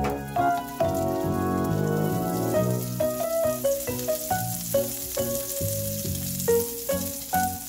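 Butter sizzling as it melts and foams in a frying pan, the sizzle building after the first second or so. Background music with struck, piano-like notes plays over it.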